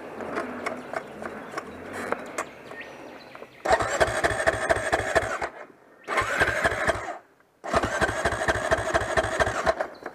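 Honda CRF dirt bike engine cranked over three times, about two seconds, one second and two seconds long, with a fast even pulse. Each attempt cuts off sharply and the engine does not catch.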